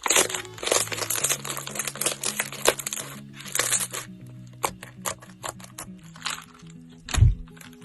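Slime being squeezed and worked by hand, giving dense crackling and popping, over calm background music.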